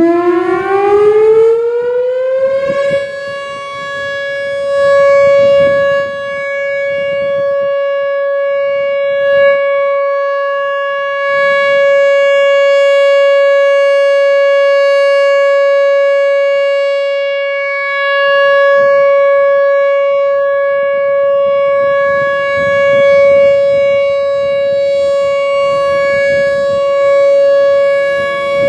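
Whelen Vortex R4 outdoor warning siren sounding its Alert signal: it winds up in pitch over about three seconds, then holds one loud steady tone that swells and fades slowly in loudness as the rotating siren turns.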